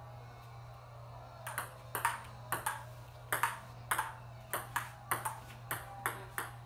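Ping pong ball clicking against the table and paddles in a quick, steady rally, about two sharp clicks every half second. The clicks start after about a second and a half.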